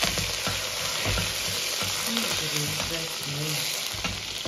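Chopped aromatics sizzling in hot oil in an iron wok, with a steady hiss and the scrape and knock of a metal ladle stirring. This is the first stage of a stir-fried noodle topping.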